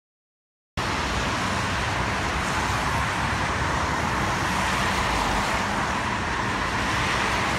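Steady outdoor street noise of road traffic, an even rumble and hiss with no distinct events. It starts abruptly about a second in, after a moment of dead silence.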